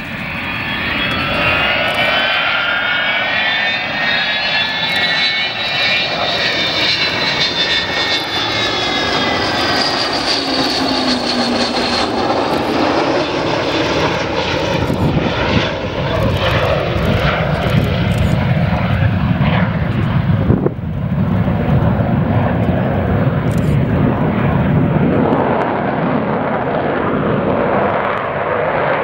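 Avro Vulcan XH558's four Rolls-Royce Olympus turbojets on a low display pass. A high whine of several tones rises and then falls over the first dozen seconds as the bomber comes in, then gives way to a deep jet rumble as it passes and climbs away.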